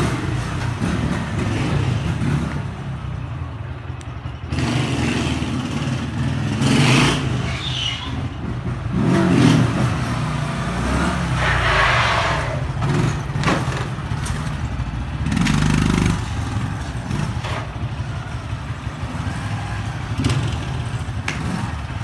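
Small step-through motorcycle's engine revving up and down again and again, the throttle worked to hold the bike up on its rear wheel in wheelies.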